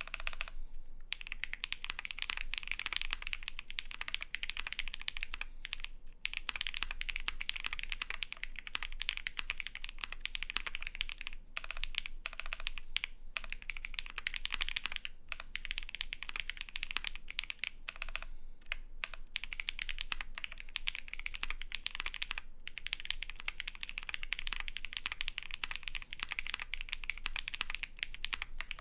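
Fast continuous typing on a custom Vega mechanical keyboard with polycarbonate plate and lubed Holy Panda tactile switches under GMK keycaps, with a few short breaks between bursts of keystrokes.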